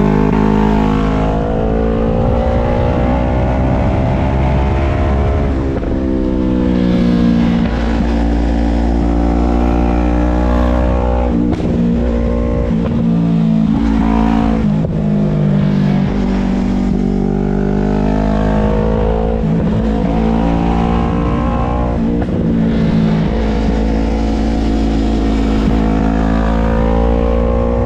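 A vehicle engine running under load, its pitch repeatedly rising and falling as it revs up and eases off, with brief drops in pitch a few times, over a steady low rumble.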